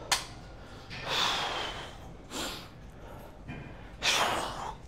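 A weightlifter's forceful, heavy breaths, three in a row, as he braces for a heavy barbell set. A sharp click comes near the start.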